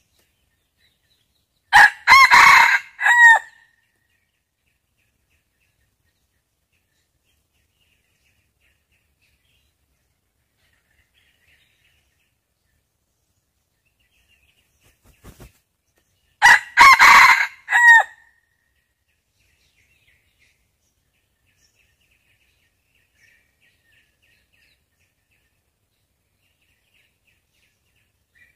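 A decoy junglefowl rooster crows twice, about fifteen seconds apart. This is the lure call used to draw wild male junglefowl. Faint small-bird chirps sound in the quiet between the crows.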